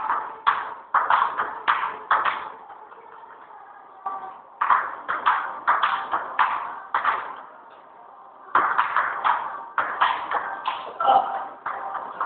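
Table tennis rallies: the celluloid ball clicking off the paddles and bouncing on the table, about two strokes a second. The three runs of hits are broken by short pauses between points.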